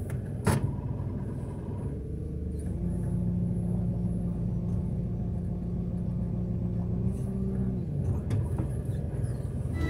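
Diesel engine of a loader running as it drives, heard from the cab; the engine note steps up about three seconds in, holds steady, and eases off near the end. A single metallic clank comes just after the start, most likely from the strapped load or the forks.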